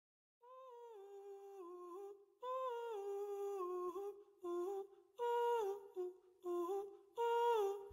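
Music soundtrack: a single voice humming a slow melody in short phrases that step down in pitch, starting about half a second in.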